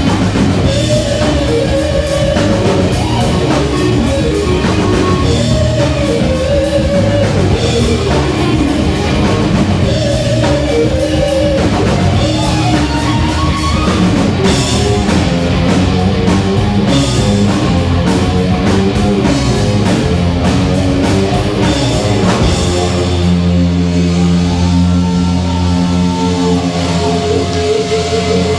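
Rock band playing with electric guitar and drum kit; about three-quarters of the way through, the drums stop and sustained guitar and bass notes ring on.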